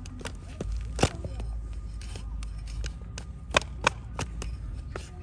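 Sharp cracks and clicks of hoof-trimming tools cutting into a donkey's hard, overgrown hoof horn. One loud crack comes about a second in and two more close together about three and a half seconds in, with a steady low rumble underneath.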